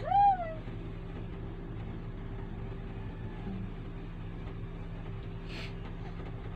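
A baby's short high squeal at the very start, rising then falling in pitch. Then a steady low hum, with a brief faint rustle about five and a half seconds in.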